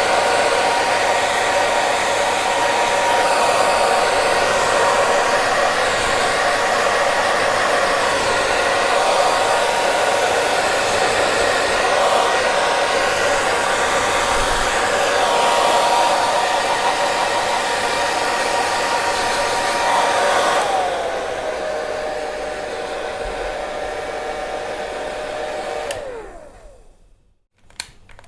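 Hair dryer blowing steadily, its motor whining over a rush of air. About 20 seconds in, the whine glides down to a lower pitch and the sound gets a little quieter. Near the end it dies away to near silence, and there is a single click.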